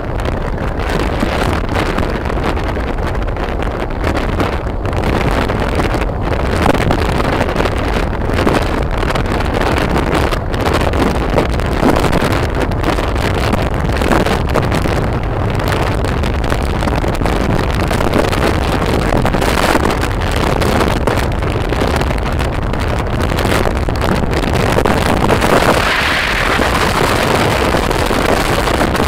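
Wind buffeting the microphone of a phone on a moving motorbike, a loud, steady rushing roar with the bike's engine and tyre noise underneath.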